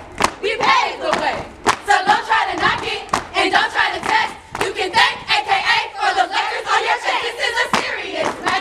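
A group of women chanting and shouting together in a step routine, cut through by sharp claps and stomps of heels on stone paving.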